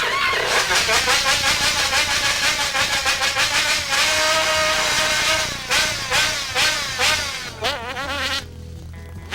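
Small motorcycle engine revving, its pitch rising and falling with the throttle, then dropping away near the end.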